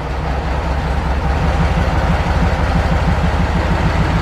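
Engine of a 1950s Miniature Train Company miniature train locomotive idling with a low, steady pulse, getting a little louder about a second in.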